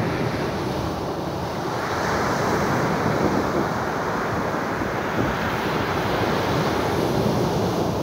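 Black Sea surf breaking and washing up a sandy beach, a steady rush of water that swells slightly about two seconds in.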